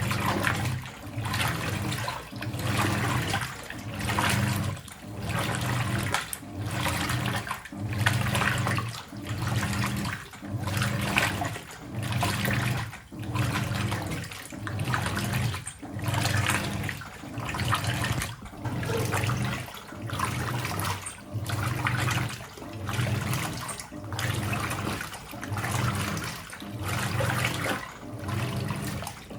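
Hoover 800RL top-loading washing machine agitating in its deep rinse: water sloshing in quick, even strokes about once a second over the motor's hum, with only a brief pause at each reversal.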